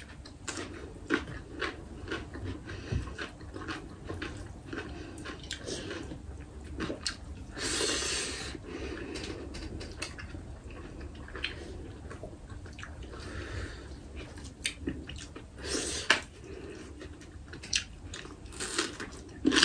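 Close-up eating sounds: chewing, with many short mouth clicks and the crunch of raw vegetables such as cucumber and onion. There is a longer, louder noisy patch about eight seconds in.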